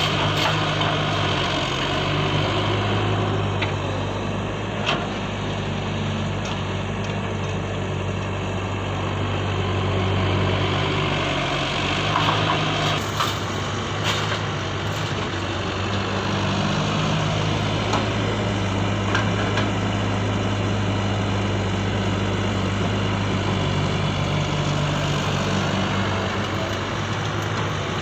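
Radio-controlled construction models at work: a steady engine-like hum with a few short clicks and knocks scattered through it.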